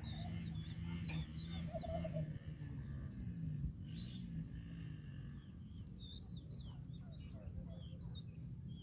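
Small birds chirping repeatedly in short, quick high notes over a steady low hum.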